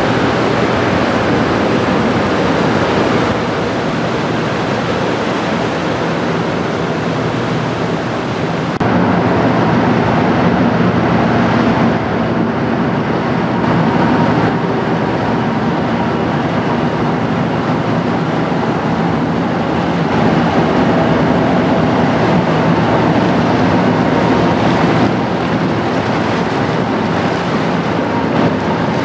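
Inland motor tanker Stolt Mosel under way: its diesel engine runs with a steady low hum beneath a loud, constant rush of wind on the microphone and water from the passing hull and bow wave.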